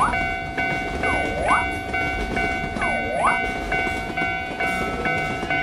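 Level-crossing warning bell ringing steadily in its alternating pattern, about two strokes a second, over the rumble of a passing train. Three quick swooping tones that fall and rise again sound in the first half, and a slow rising glide comes near the end.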